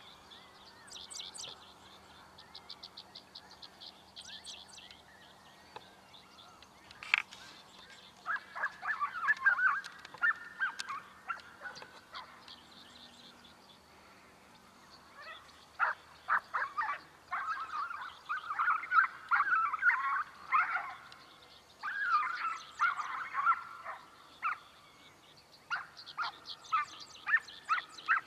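Animal calls in several bouts of rapid, wavering cries, loudest in the middle and second half. Songbirds trill in short high phrases at the start and near the end.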